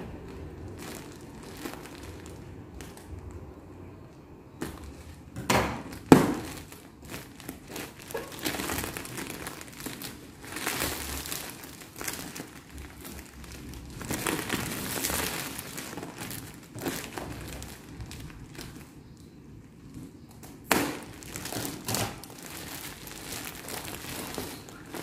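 Plastic packaging around a bolster pillow crinkling and rustling in irregular handfuls as it is pulled open by hand, with sudden louder crackles about six seconds in and again near twenty-one seconds.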